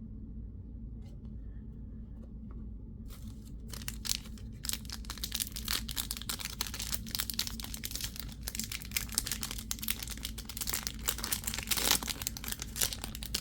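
Crinkling and tearing of a foil trading-card pack wrapper being opened and handled, starting about three seconds in over a low steady hum.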